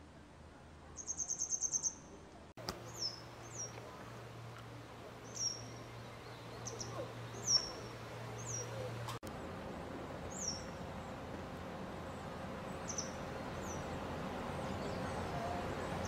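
Grey wagtail calling: a quick high trill about a second in, then a string of short, sharp, high downslurred call notes at irregular intervals, over a steady background hiss that grows louder toward the end.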